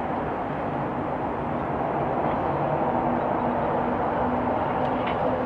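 Steady outdoor background rumble with a faint low hum.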